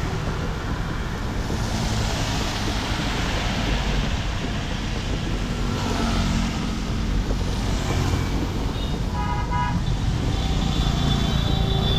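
Road traffic running steadily, with vehicles passing and a short vehicle horn toot about nine seconds in. Another pitched tone, possibly a second horn, sounds near the end.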